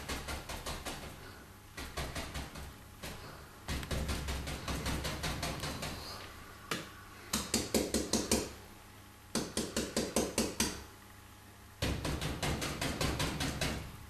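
Short-bristled stippling brush tapping paint onto a stretched canvas, laying in tree foliage. It comes in runs of quick taps, about five or six a second, with short pauses between the runs.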